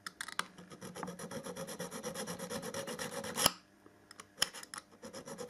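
Small hand file being drawn back and forth over a thin model railway rail profile in quick, even rasping strokes, about five a second, with a short break a little past halfway.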